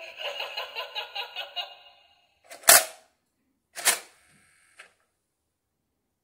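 An electronic Halloween toy's warbling, pulsing sound effect fades away over the first two seconds. Then come two sharp clicks about a second apart, the second with a brief ringing tail.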